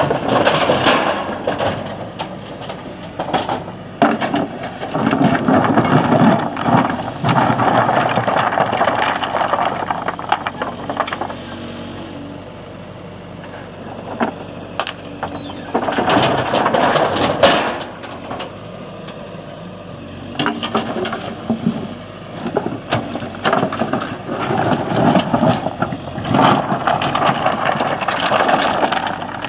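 JCB backhoe loader's diesel engine running while stone is scooped and dumped into a tipper truck. Rocks rattle and crash in three long spells, with the engine running more steadily between them.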